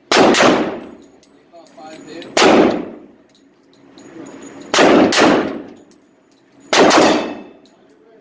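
Four gunshots about two to two and a half seconds apart, each loud crack followed by a long echoing decay off the walls of an indoor range.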